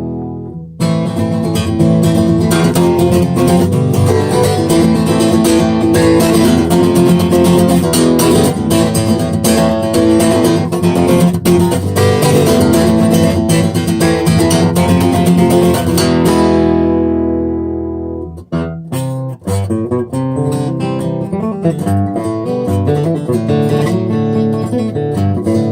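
Martin HD-28 steel-string dreadnought acoustic guitar strummed hard and steadily, until a chord is left ringing and fading about two-thirds of the way through. Lighter picking of separate notes follows.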